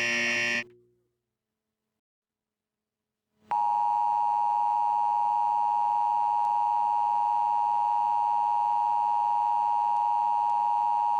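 Emergency Alert System signal: the tail of a buzzy SAME data-header burst, a pause of about three seconds, then the steady two-tone EAS attention signal, which starts about three and a half seconds in and holds unbroken.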